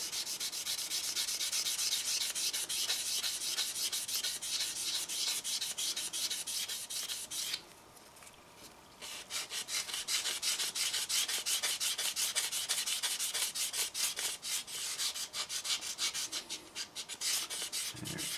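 Sanding sponge rubbed quickly back and forth along a plastic model kit chassis rail, a dry scratchy hiss of rapid strokes, taking down a mould seam line. The strokes stop for about a second and a half a little before halfway, then carry on.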